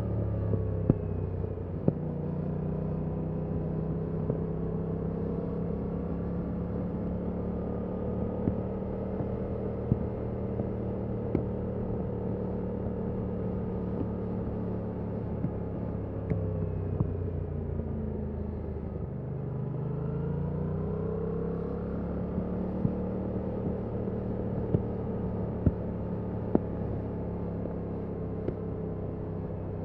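Yamaha MT-07's stock-exhaust 689 cc parallel-twin engine running steadily under way. Just past the middle the revs drop, then rise again as it pulls away.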